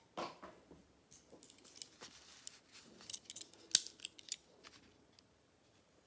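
A soft knock, then a run of sharp, irregular clicks from a snap-off utility knife, its blade slider ratcheting out.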